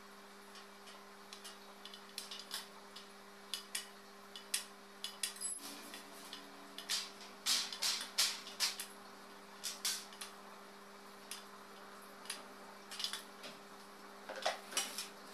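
Irregular small metallic clicks and clinks as screws and the white steel frame and mesh panels of a Lerberg-style shelving unit are handled and fitted together, busiest about halfway through and again near the end. A steady low electrical hum runs underneath.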